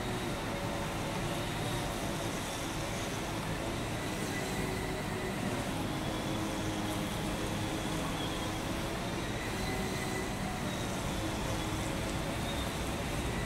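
Steady outdoor background noise with a low rumble, like distant road traffic; no train is passing.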